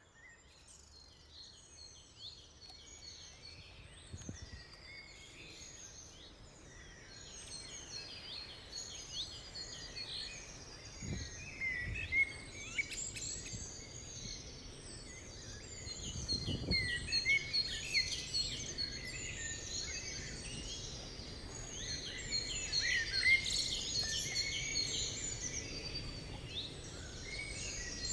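Chorus of several small birds chirping and singing, with many quick overlapping high calls that grow louder over the stretch. A thin, steady high tone runs underneath, and a few soft low thuds come at intervals.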